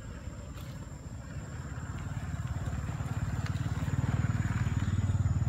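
A motor vehicle's engine running with a low, evenly pulsing rumble, getting louder from about two seconds in.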